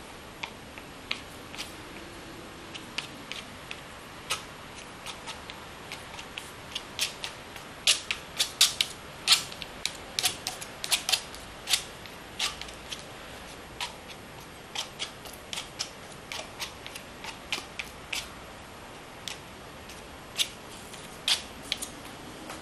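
Steel palette knife dabbing and tapping acrylic paint onto paper taped to a board: an irregular run of short clicks and taps, busiest in the middle.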